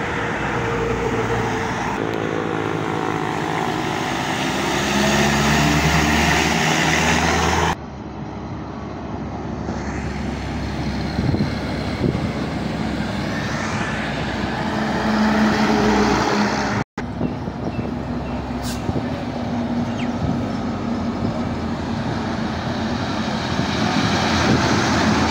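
Heavy diesel trucks driving past at close range, engine drone over tyre and road noise. In the first stretch one truck's engine note climbs as it accelerates. The sound breaks off abruptly twice, about eight and seventeen seconds in, as one passing truck gives way to the next.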